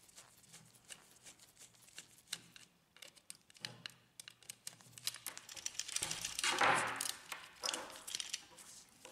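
Small clicks and scrapes of a screwdriver turning a screw in the plastic end frame of a laser printer fuser unit, then louder rustling and knocking as gloved hands handle the unit, loudest about two-thirds of the way in.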